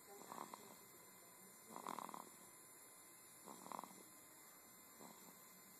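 Faint snoring: four short, rattling snores about every one and a half seconds, the second one the loudest.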